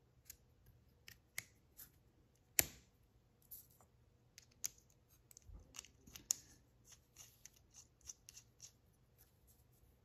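Small disc magnets clicking against each other and the aluminum tube as they are fed into it by hand: a scattered run of faint, sharp metallic clicks, the sharpest about two and a half seconds in.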